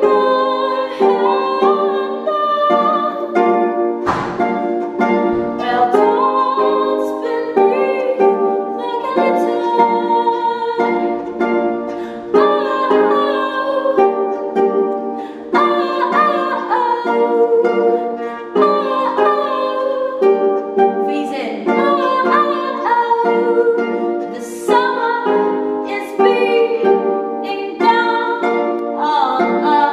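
A woman singing a folk-pop song while plucking a harp.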